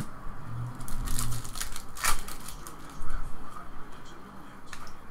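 Hands opening a foil pack of trading cards and thumbing through the cards: irregular crinkling and rustling with a few sharp flicks, the loudest about two and three seconds in.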